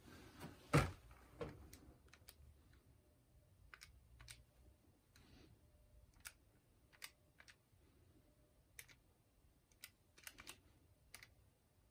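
Faint, unevenly spaced clicks of the buttons on a Sharp scientific calculator being pressed one at a time, with a single louder knock about a second in.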